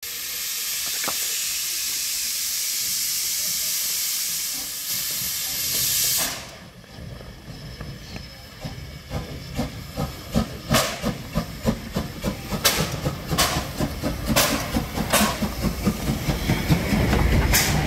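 Steam tank locomotive HSIJ 57 'Bonne' hissing steam steadily for about six seconds until the hiss cuts off suddenly. The locomotive then works slowly forward with slow exhaust chuffs and sharp hisses of steam, its low rumble growing louder as it passes close.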